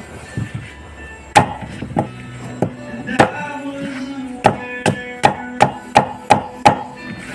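Chayote being chopped with a knife: sharp chopping strokes, a few scattered ones at first, then a steady run of about three a second in the second half.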